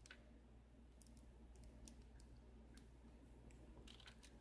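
Near silence with a low steady hum and a few faint, scattered clicks and light taps of small metal lock parts and tools being handled.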